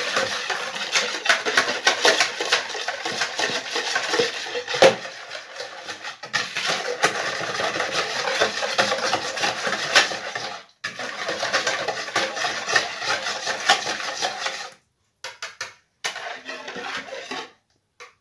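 Wire balloon whisk beating a runny mix of warm water, yeast, sugar, egg and butter in a plastic bowl: a fast, continuous clatter and swish of the wires against the bowl. It stops briefly a little past the middle and turns stop-start in the last few seconds.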